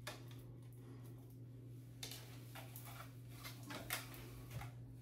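Faint scattered clicks and rustles of hands rummaging in a cardboard box of packaging, over a steady low hum.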